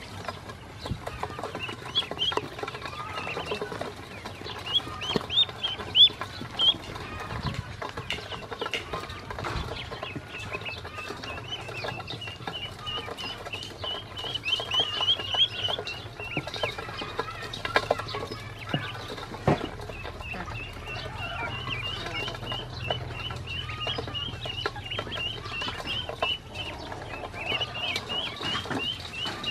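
Ducklings peeping in runs of short, high, rising calls while they eat feed from a stainless steel bowl, with scattered sharp taps and clicks of bills pecking against the metal, a few louder ones about six seconds in and around eighteen seconds.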